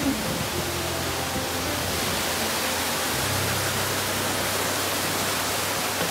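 Steady, even rushing noise, with a faint low hum that grows a little stronger about three seconds in.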